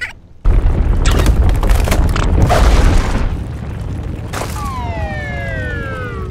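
Cartoon earthquake sound effect: a deep rumble with crashes as the ground cracks open, easing after about three seconds. It is followed by a long smooth tone that glides steadily downward in pitch.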